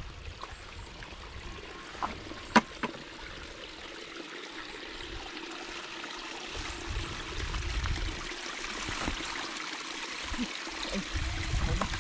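Stream water running and trickling over rocks, with a sharp click about two and a half seconds in and a smaller one just after.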